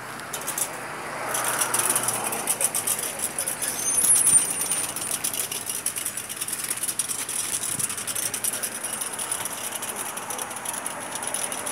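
Street traffic noise with a rustling, rattling handling noise on the phone's microphone as the person walks. A brief high squeal comes about four seconds in.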